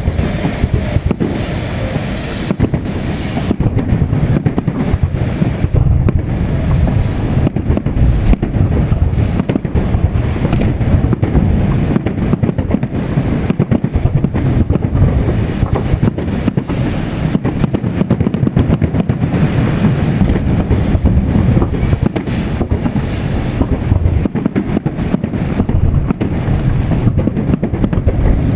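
Fireworks salute going off in a continuous run of overlapping booms and crackles, with wind rumbling on the microphone.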